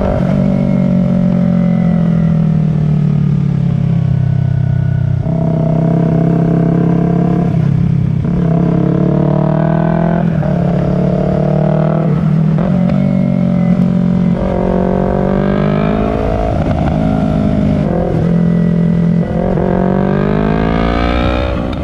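Yamaha R3's 321 cc parallel-twin engine running through an aftermarket Akrapovic slip-on muffler, its pitch repeatedly rising and then dropping back as the throttle is worked.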